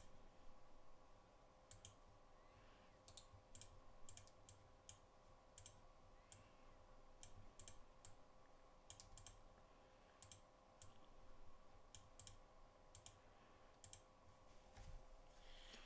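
Faint, irregular computer mouse clicks, many of them, over a low steady electrical hum.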